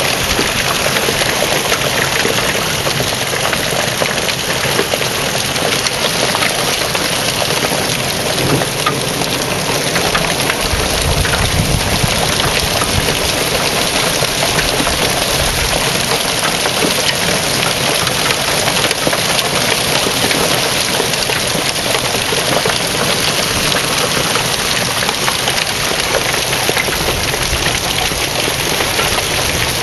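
Nickel-size hail pelting down hard: a loud, steady, dense clatter of countless stones striking the ground and hard surfaces.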